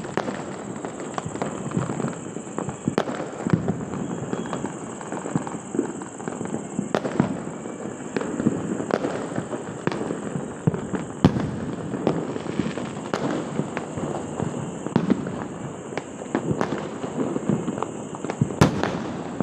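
Fireworks and firecrackers going off all around: a constant crackle with sharp bangs every couple of seconds, the loudest a little before the end.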